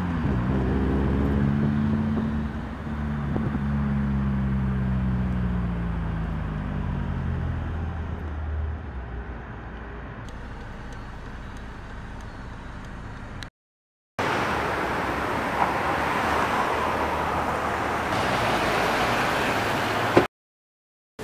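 Street traffic: a car passes close by, its engine tone falling in pitch as it goes, then fades into steady traffic noise. After a short break, steady street noise continues, then cuts off suddenly near the end.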